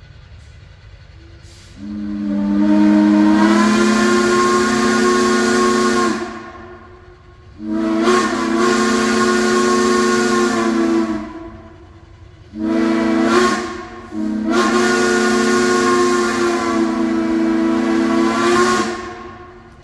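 Narrow-gauge locomotive's steam whistle sounding a chime with a breathy hiss, blown four times: long, long, short, long, each blast sagging a little in pitch as it cuts off. That long-long-short-long pattern is the standard grade-crossing signal.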